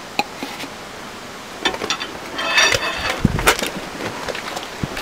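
Scattered metallic clicks and knocks of a long wrench being worked on a bolt of a car's front suspension, with a short rasping stretch a little past halfway.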